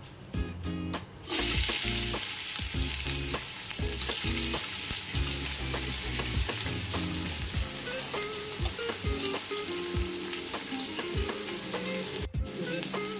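Sliced onions dropped into hot oil in an aluminium pot with whole spices: a loud sizzle starts suddenly about a second in and goes on steadily as the onions begin to fry. It cuts out briefly near the end.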